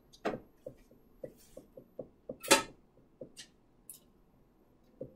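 Whiteboard marker writing on a whiteboard: a run of about a dozen light taps and short strokes, the loudest a sharp stroke about two and a half seconds in.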